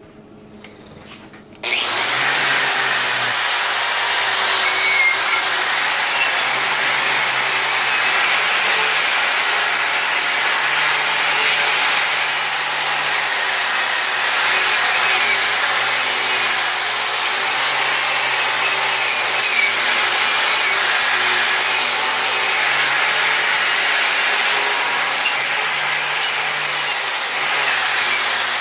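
A power grinder starts about two seconds in and runs steadily, grinding at the work with a rough rasp under a high, steady motor whine.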